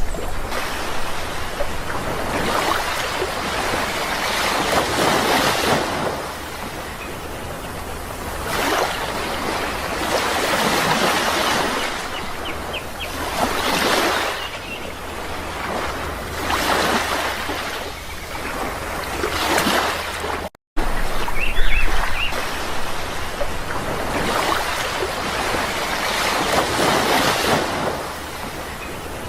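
Sea waves washing in and ebbing, swelling about every two to three seconds. The sound cuts out completely for a split second about twenty seconds in.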